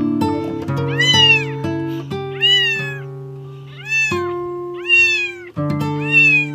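A very young kitten mewing repeatedly, about six short high cries that rise and fall in pitch, over background music with sustained plucked notes.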